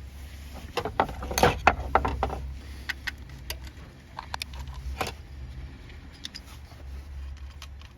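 Scattered light clicks, taps and rattles of hand tools and plastic and metal engine parts as an ignition coil is worked loose and pulled from a car engine, over a low steady hum. The strongest knocks come about a second and a half in and again around five seconds in.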